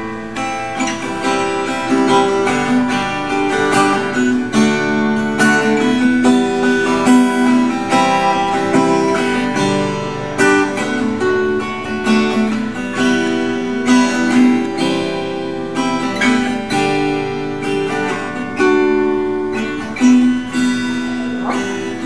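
Seagull Entourage Grand parlor acoustic guitar, with a solid cedar top and wild cherry back and sides, played with steady strummed chords.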